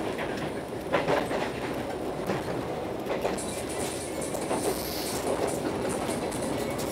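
Argo Parahyangan passenger train running at speed, heard from inside the carriage: a steady rumble of wheels on the track, broken by a few sharp knocks and clacks, the strongest about a second in.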